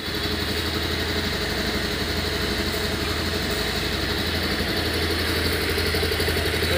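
Bajaj Pulsar 220F's 220 cc single-cylinder engine idling steadily on the brand-new bike's first start.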